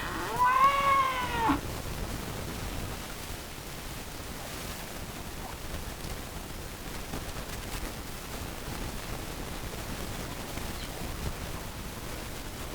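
A chicken giving one long call that rises and then falls in pitch, lasting about a second and a half, followed by a steady faint outdoor hiss.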